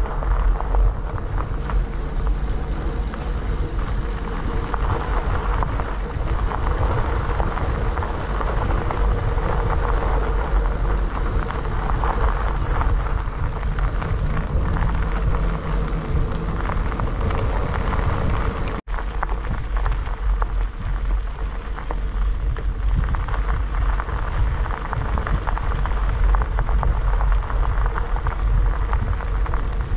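Riding noise from a bicycle on a gravel road: tyres crunching over the gravel under a steady rumble of wind on the microphone. The sound drops out for an instant a little after two-thirds of the way through.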